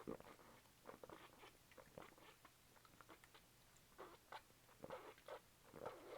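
Faint scattered clicks and taps from handling a glass Ramune marble soda bottle, with no loud pop or fizz.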